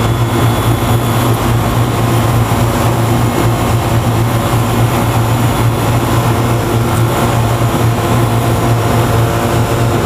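Outdoor air-conditioner condenser unit running close up: a steady low compressor hum under the even rush of the condenser fan.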